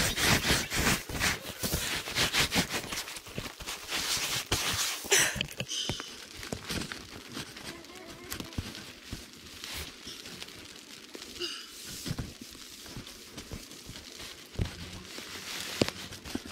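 Nylon tent fabric rustling and crinkling as someone handles it and crawls into a pop-up tent. The rustling is dense for about the first five seconds, then drops to quieter scattered rustles and taps.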